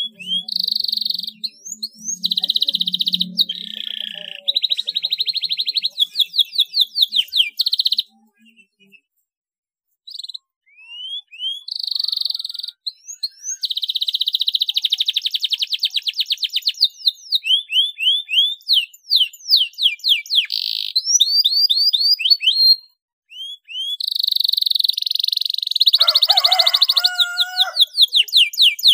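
Domestic canary singing: long rolling trills and fast runs of rising and falling whistled notes, broken once by a silent gap of about two seconds about a third of the way through.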